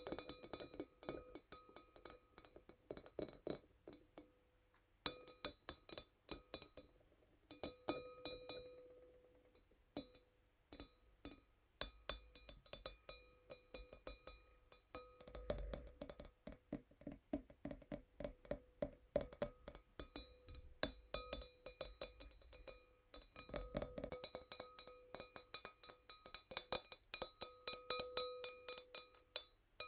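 Fingernails tapping a tiny wine glass fast and gently, in quick runs of bright clinks with brief pauses. Each tap leaves the glass ringing with a clear pitch.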